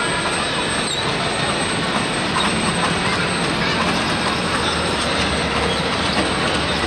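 A 15-inch gauge miniature train, a small locomotive hauling loaded passenger cars, running steadily along the track with its wheels rolling on the rails.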